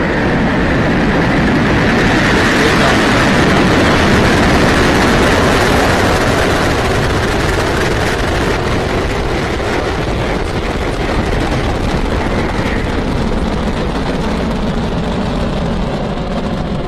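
Falcon 9's nine Merlin 1D first-stage engines igniting and lifting off: a loud, steady rushing noise that comes in suddenly at ignition. It builds over the first few seconds and then eases slowly as the rocket climbs away.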